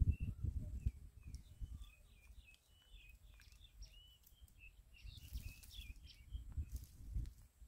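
Small birds chirping, a quick run of short high notes, faint over bouts of low rumbling noise.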